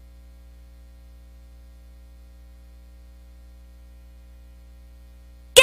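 Faint steady electrical hum, the low buzz of the broadcast's audio chain between tracks. Loud music cuts in abruptly at the very end.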